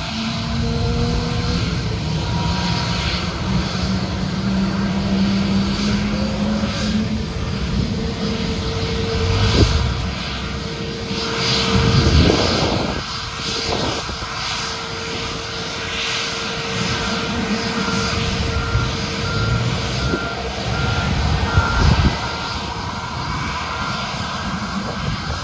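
Airliner jet engines running steadily, with a continuous low rumble and steady tones, swelling louder a few times in the middle. A short beep near 1.4 kHz repeats at an even pace through the second half.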